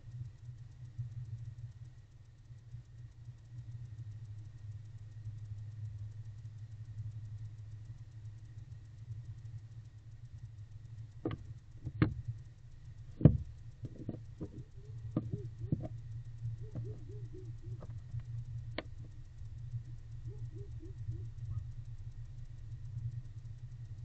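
Steady low hum with a thin high whine throughout. About halfway through, a barn owl moving about in a wooden nest box makes a few sharp knocks, two of them loud. These are followed by a run of short scuffs and one more knock a few seconds later.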